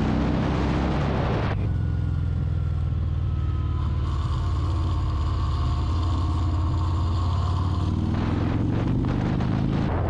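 Harley-Davidson Fat Bob's 114 cubic-inch Milwaukee-Eight V-twin under way on a test ride after a tune-up, with wind noise on the camera's microphone. The revs rise under acceleration, ease off to a steadier, quieter run about a second and a half in, then rise again as it accelerates near the end.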